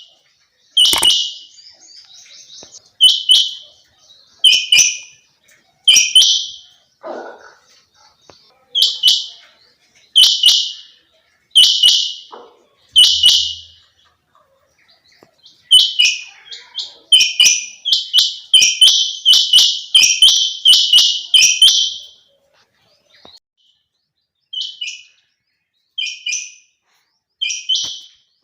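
Female quail calling: a long series of short, high calls, one every one to two seconds, coming faster in a run about halfway through, then fainter near the end.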